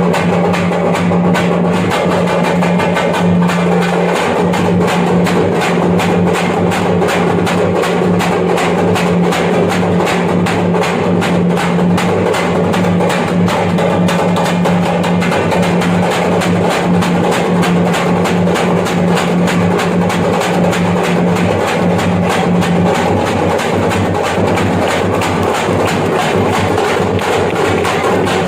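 Parai (thappattam) frame drums beaten in a fast, dense, driving rhythm. A steady low tone sounds underneath and stops about 23 seconds in.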